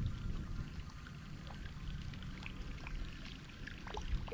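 Water trickling and dripping around a kayak, with many small scattered ticks over a low, steady rumble.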